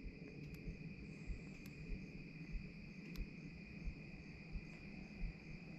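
Steady, faint chorus of night insects, one constant high-pitched trill, with a few faint clicks.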